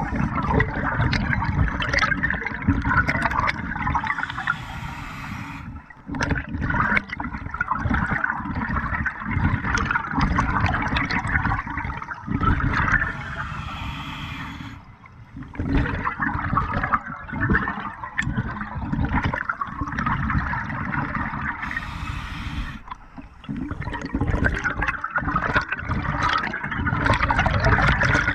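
Scuba diver breathing underwater through a regulator: long bubbling exhalations, broken three times by a short hissing inhalation.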